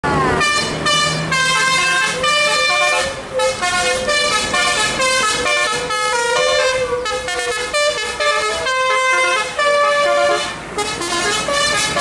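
Tour bus 'telolet' multi-tone air horn playing a fast melody of stepped horn notes, opening with a short falling glide, with brief breaks about three seconds in and near the end.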